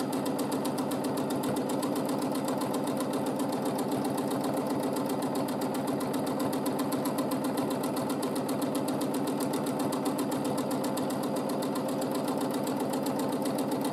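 Domestic sewing machine running steadily at speed while free-motion quilting, its needle working in rapid, even strokes.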